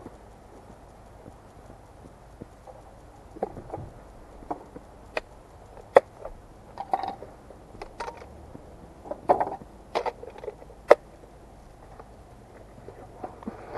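Handling noise of a Hubsan H502S drone's hard plastic remote controller being set into a foam-lined aluminium carrying case: irregular sharp clicks and knocks, most of them in the middle stretch.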